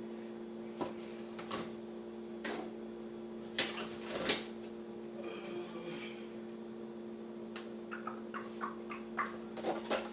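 Kitchenware being handled: scattered clicks and knocks, the two loudest about three and a half and four seconds in, and a quick run of small clicks near the end, over a steady low hum.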